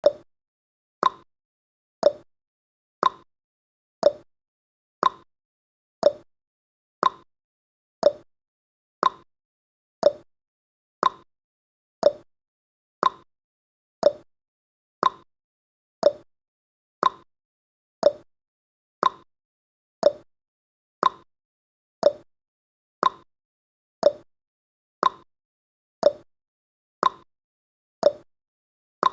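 Countdown timer sound effect ticking steadily, one short clock-like tick each second, each with a brief ring.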